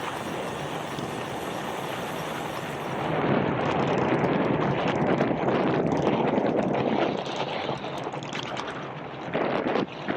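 Wind rushing over the microphone with road noise during a bicycle ride, swelling louder for about four seconds in the middle.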